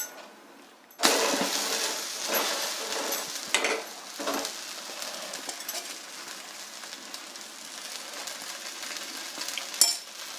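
Millet adai flipped onto a hot, oiled dosa griddle: a sudden sizzle breaks out about a second in and slowly settles to a steady frying hiss as the second side cooks. A few light spatula clicks, and a sharper clink near the end.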